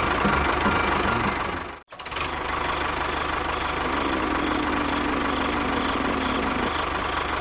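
An engine running steadily, cut off abruptly about two seconds in and then resuming.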